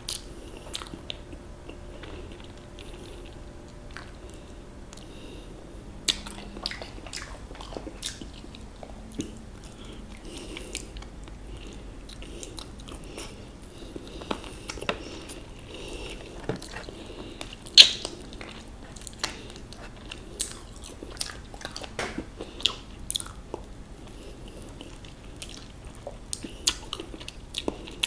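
A person biting and chewing crispy fried chicken close to the microphone. The breaded crust gives short, sharp crunches at irregular intervals, with one especially loud crunch about two-thirds of the way through.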